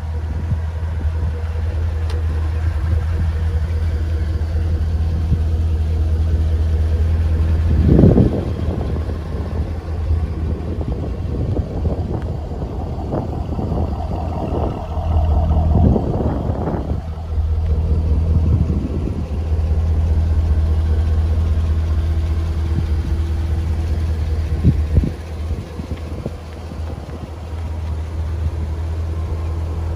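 2008 Chevrolet Corvette's 6.2-litre LS3 V8 idling steadily through its quad exhaust, a low even hum. A few brief louder swells come in, the strongest about a quarter of the way in and more around the middle.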